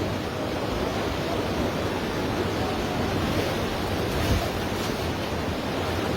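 Steady, even rush of floodwater pouring through and around a house.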